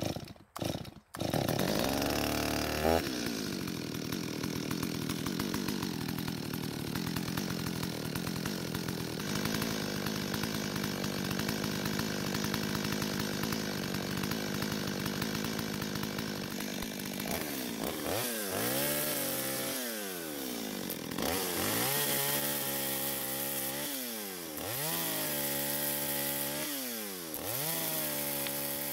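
Stihl 025 two-stroke chainsaw pull-started, catching after a few yanks of the starter cord about a second in, running fast briefly and then settling to a steady idle. From about 18 seconds it is revved four times and each time drops back to idle without stalling, its carburettor low-speed (L) screw having just been richened a quarter turn to cure stalling on return to idle.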